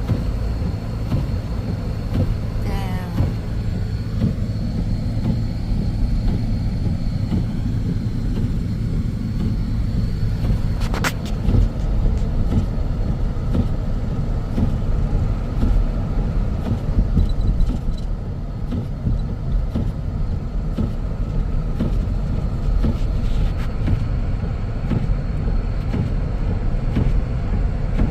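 Car driving, heard from inside the cabin: a steady low rumble of engine and road noise, with one sharp click about eleven seconds in.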